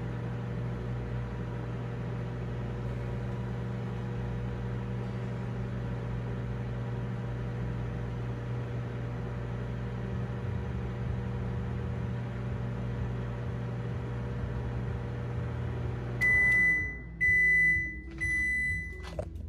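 Sharp ZSMC1449FS smart countertop microwave running with a steady hum, which stops about 16 seconds in; three long, even beeps about a second apart follow, the microwave's signal that the cooking cycle has ended.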